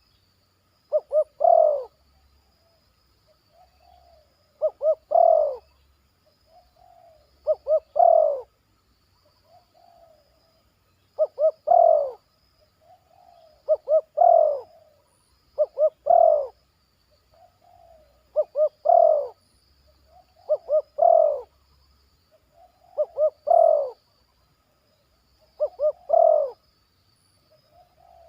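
Spotted dove cooing its song over and over, about one phrase every two to three seconds: two or three short quick coos, then a longer, louder falling coo, with softer single coos in between.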